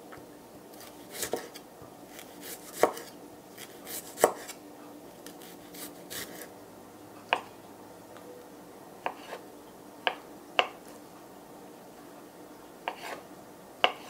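Chef's knife chopping vegetables on a wooden cutting board: about ten sharp knocks, unevenly spaced.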